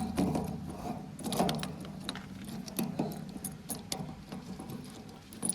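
Heavy diesel machinery running steadily at low revs, with scattered sharp metallic clinks and knocks.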